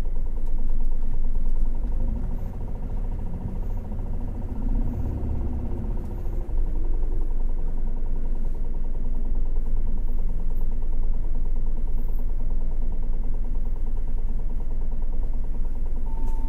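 City bus engine and drivetrain running, heard from inside the passenger cabin as a steady low rumble. It eases off about two seconds in and picks up again about six and a half seconds in, as the bus slows and then pulls away.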